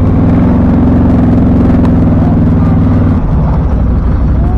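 ATV engine running steadily at raised revs, then easing back to a lower idle about three seconds in.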